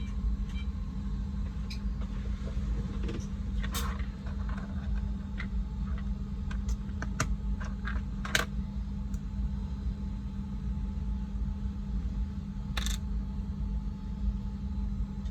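Small plastic-and-metal clicks and taps of a mechanical keyboard switch being handled and worked over its copper contact leaf, with three louder sharp clicks about four, eight and thirteen seconds in, over a steady low hum.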